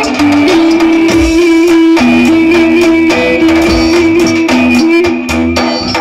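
Loud Turkish Romani dance music (Roman havası): a held, stepping melody line over a steady drum beat.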